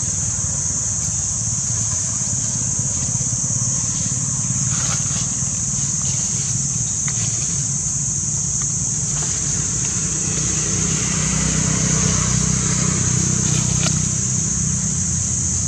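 A steady high-pitched insect drone over a low rumble that grows louder about two-thirds of the way through, with a few faint clicks.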